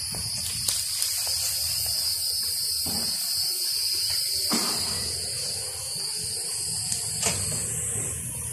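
Steady high-pitched insect chorus buzzing without a break, over a low rumble, with a few scattered knocks, the sharpest near the end.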